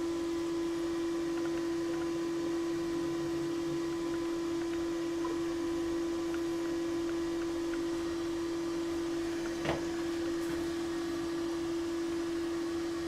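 A steady low hum at one pitch, with a single faint click nearly ten seconds in.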